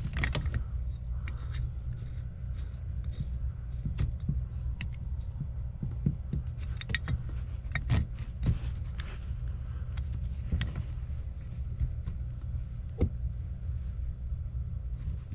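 Adjustable wrench on the cap of a brass water pressure regulator valve, giving scattered short metal clicks and taps as the cap is worked loose, over a steady low hum.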